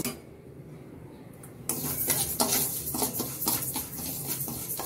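A metal spoon stirring barnyard millet as it dry-roasts in a stainless steel kadai, scraping and clinking irregularly against the pan. The clinks begin about a second and a half in, after a quieter start.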